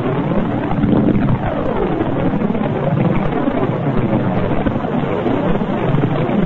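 Sonification of Cassini's radio and plasma-wave data from Saturn's rings: a loud, continuous hum made of many overlapping tones that keep swooping up and down in pitch.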